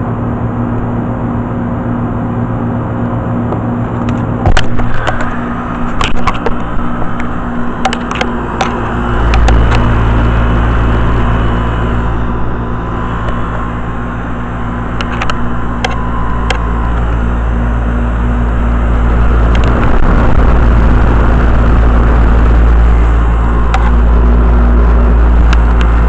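Tempstar central air conditioner's outdoor condensing unit running after startup: a steady hum with fan noise. Several sharp clicks and knocks come between about four and eight seconds in, and a deep rumble grows louder from about nine seconds in.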